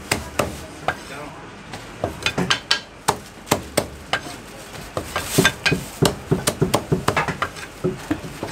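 Heavy Chinese cleaver chopping roast poultry on a thick round wooden chopping block: a string of sharp chops, some spaced out and some in quick runs of several strokes.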